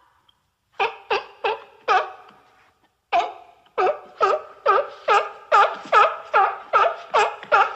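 Seal barking in a run of short calls, each dipping and rising in pitch: four barks, a pause of about a second, then a faster series of about two or three a second.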